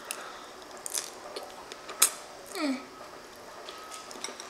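Close-miked chewing and lip-smacking on a big mouthful of lasagna: wet mouth clicks, the sharpest about two seconds in, followed by a short falling vocal sound.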